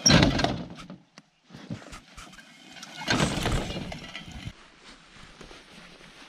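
Metal clattering and scraping as a small homemade motorised rail trolley is dragged off the narrow-gauge rails, in two loud bursts, one right at the start and one about three seconds in.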